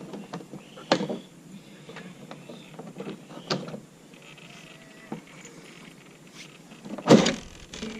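Knocks and clicks of the hard plastic bodies of Traxxas TRX-4 RC trucks being handled and taken off, with a few stronger knocks and the loudest about seven seconds in.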